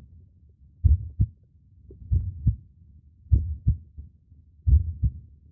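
Heartbeat sound effect: pairs of low, deep thumps (lub-dub) repeating evenly about every 1.3 seconds.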